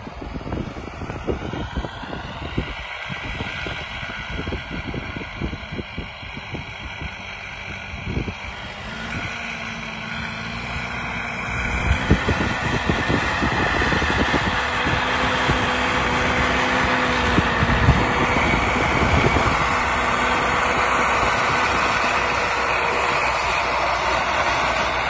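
IFA W50 4x4 truck's diesel engine running as the truck drives up, growing louder about halfway in and settling into a steady drone as it comes close.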